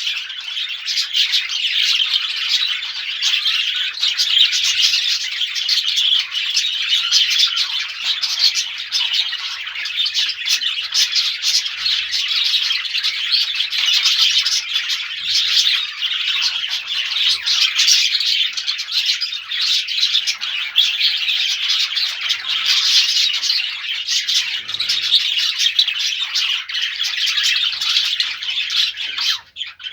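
Many small birds chirping at once, a dense, unbroken chatter of high short calls.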